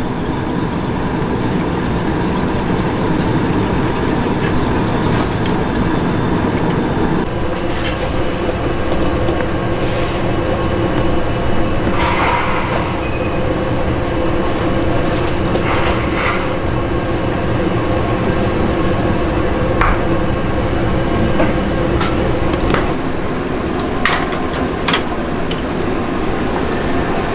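Steady rushing background noise of a busy commercial ramen kitchen, with scattered clinks and knocks of metal utensils and bowls.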